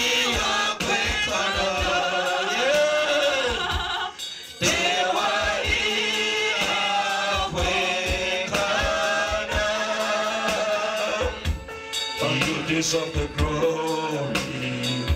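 Gospel worship song: a man leading the singing through a microphone, with the congregation singing along. The sound drops briefly about four seconds in, then the singing picks up again.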